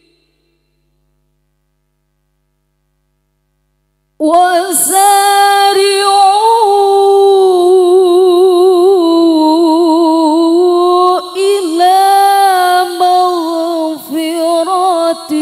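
Silence for about four seconds, then a woman's amplified Qur'an recitation in the melodic tilawah style: long held notes that waver and turn in ornaments, with brief pauses for breath near the end.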